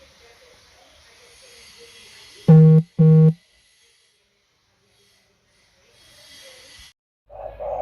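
Two short, loud electronic beeps about half a second apart, a low buzzy tone, followed by a few seconds of dead silence. Dove cooing begins near the end.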